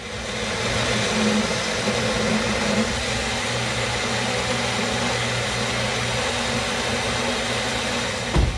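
Magic Bullet personal blender motor running steadily, blending a thick smoothie, with a low thump near the end.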